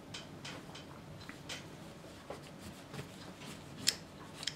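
Small clicks and taps as the bolt and guide rod of an airsoft MP9 are handled and fitted together, with a sharper click near the end.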